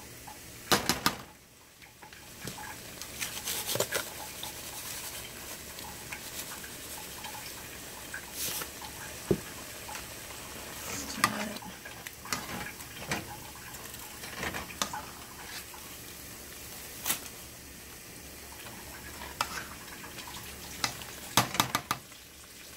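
Thick pepita-based egusi soup sizzling and bubbling as it simmers in a stainless steel pot, with a spatula scraping through it and scattered clicks and knocks against the pot as it is stirred.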